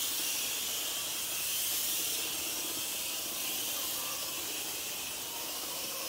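Pressure spray wand hissing steadily as it sprays fermentation liquid in a fine jet onto a heap of chicken manure.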